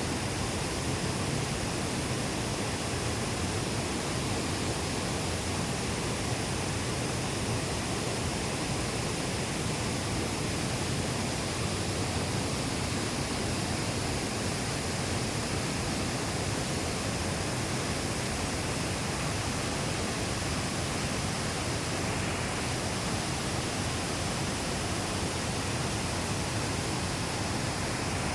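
Waterfall water rushing, a steady even roar with no change.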